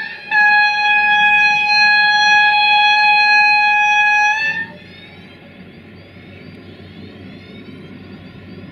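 Horn of a class 290 (V90) diesel-hydraulic locomotive giving one long single-tone blast of about four seconds, right after a shorter one, ending about four and a half seconds in. Then the locomotive's diesel engine and the train's rumble, slowly growing louder as it approaches.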